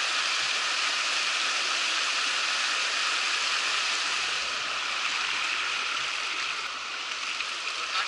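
Steady rush of a hill stream pouring over rock slabs and down a small cascade, a continuous even hiss that eases a little in the second half.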